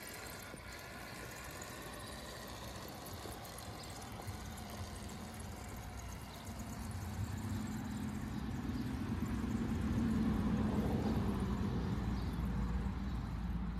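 Traxxas TRX6 6x6 RC truck driving over gravel, a steady mechanical running sound from its electric drivetrain. A low rumble builds from about halfway through and stays strong to the end.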